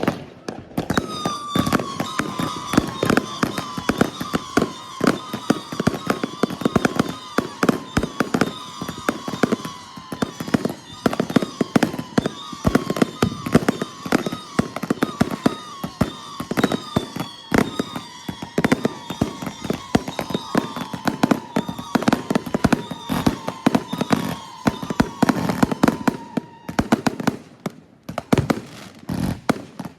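Two World Class Fireworks show-in-a-box cakes, Wings of the Brave and Shield of Liberty, firing together: a rapid, continuous barrage of shots and bursts. A steady high whistle runs under the bangs for most of the time and stops a few seconds before the end, when the firing thins out.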